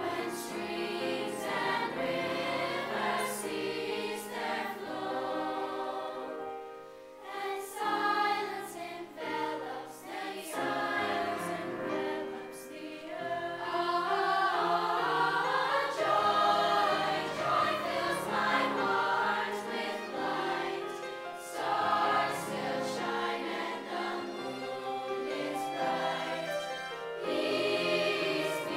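School choir of mixed young voices singing in parts, accompanied by piano and violin, with a short gap between phrases about seven seconds in.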